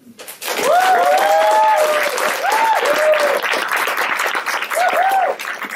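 Audience applauding loudly, with several whoops and cheers over the clapping. The applause starts about half a second in and begins to fade near the end.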